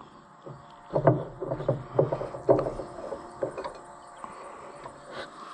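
New spin-on hydraulic filter being twisted tight by hand through a shop rag on an Allis-Chalmers 200 tractor: a run of short rubbing, squeaking strokes from about a second in to about three seconds, then fainter.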